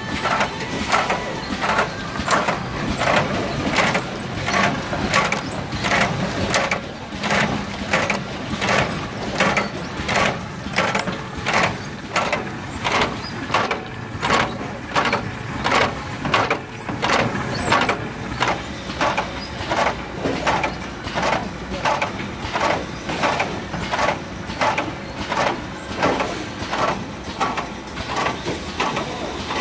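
Demtec EVO potting machine running, a steady rhythm of short mechanical strokes roughly two a second as the rotary table indexes pots through filling.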